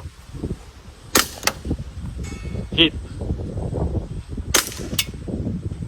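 Airsoft guns firing, with sharp pops coming in pairs about a second in and again near the end.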